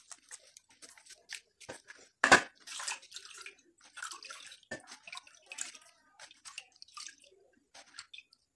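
Wet squelching, splashing and dripping as hands squeeze grated coconut in water and strain the milk through a plastic colander into a steel bowl, in short irregular bursts with one louder splash about two seconds in.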